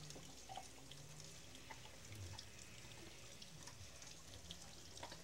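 Near quiet: faint, irregular ticks of a few scattered raindrops, a light sprinkle falling on leaves and the porch, over a faint low hum.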